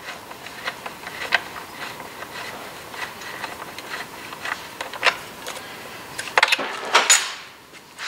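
Socket ratchet and extension clicking in light, irregular ticks as a brake caliper mounting bolt is backed out, with a few louder metal clacks near the end.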